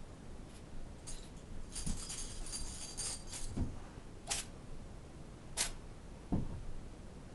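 A cat in a sneezing fit: a string of short, sharp sneezes, about half a dozen, with a brief crackly metallic jingle in the middle.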